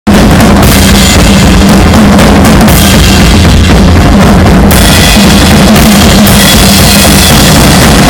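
Drum kit solo played live: fast, dense bass drum, snare and tom hits with cymbal crashes. The recording is very loud, pinned at full level on a cell phone microphone.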